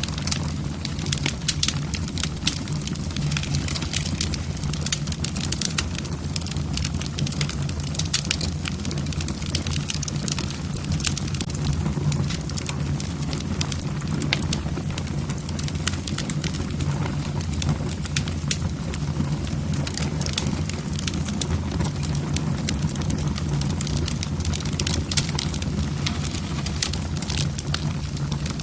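Wood fire in a fireplace, logs crackling with many irregular sharp pops over a steady low rumble of the flames.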